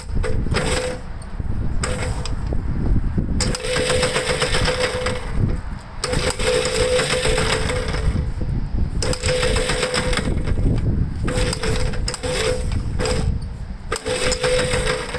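Electric starter cranking a 1962 Gravely LI walk-behind tractor's single-cylinder engine in about eight bursts, the longest about two seconds, a whine with a fast chatter; the engine does not catch. Wind rumbles on the microphone throughout.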